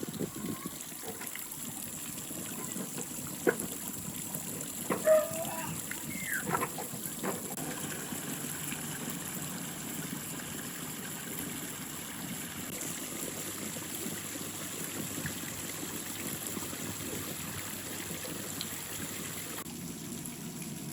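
Backyard fountain's water splashing and trickling steadily into a small pond, with a few brief sharp sounds over the top a few seconds in.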